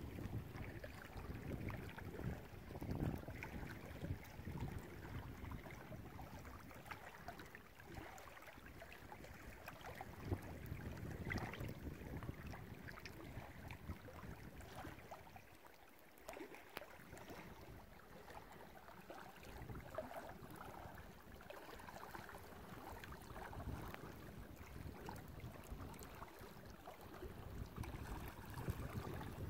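Wind gusting on the microphone in uneven rises and lulls, with small waves lapping against a rocky lakeshore.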